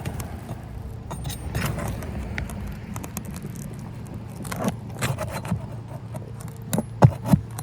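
Scraping and clinking as a nail is worked loose from an asphalt roof shingle, with a few sharp knocks near the end, over a steady low hum.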